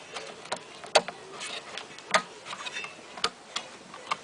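Replacement LCD screen board being pressed into its plastic mounting clips: a series of sharp clicks, the loudest about once a second, with light handling noise between.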